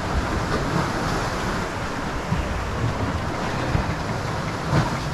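Wind buffeting the microphone over the wash of sea water around a small boat: a steady rushing noise that swells and eases slightly.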